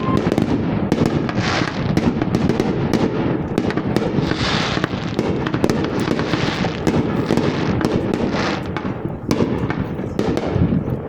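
Fireworks going off in a dense barrage: a continuous rapid crackling and popping, many small bangs overlapping, with louder flurries every couple of seconds.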